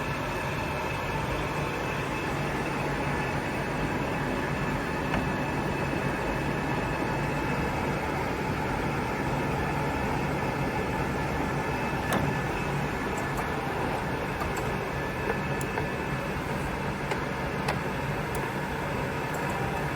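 Victor gap bed engine lathe with a 20 horsepower motor running under power, its spindle and geared head turning with a steady mechanical hum and faint gear whine. A few light clicks stand out over the running noise, one about twelve seconds in.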